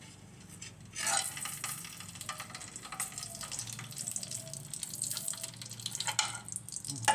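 Ghee sizzling and crackling in a hot pan, starting about a second in, with a couple of sharper knocks of a spoon against the pan near the end.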